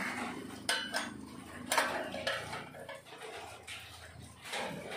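A few scattered light clicks and knocks as hands handle the steel cover plate over the lock of a welded tubular steel grill gate.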